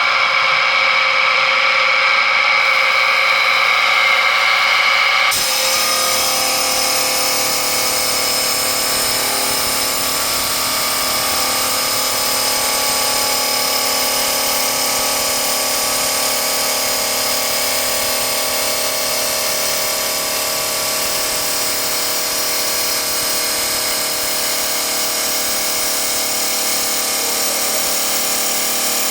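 Power tool running a Distar diamond cutting disc on a test cut in tile. It first spins free with a steady high whine, then about five seconds in the disc bites into the material and a harsher, steady cutting grind carries on.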